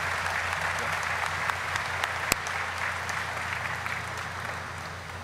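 Audience applauding, dying away toward the end, with one sharp click about two seconds in.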